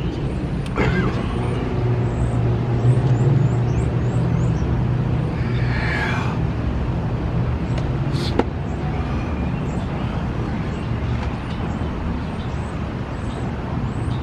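Steady low rumble of road traffic and a running vehicle engine, loudest about two to four seconds in, with a brief higher noise about six seconds in and a sharp click about eight seconds in.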